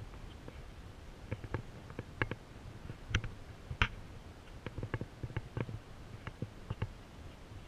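Camera handling noise: irregular light clicks and knocks as the camera is carried and turned while walking, over a low muffled rumble.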